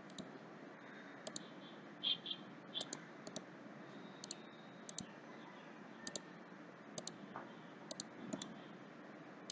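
Computer mouse buttons clicking: about ten short, sharp clicks at irregular intervals, several as quick press-and-release pairs, over faint steady hiss.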